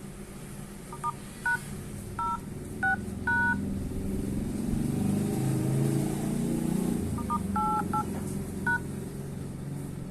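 Smartphone dial-pad tones: short two-tone DTMF beeps as keys are pressed one at a time, five in a quick run near the start and four more later. A low rumble swells in the middle.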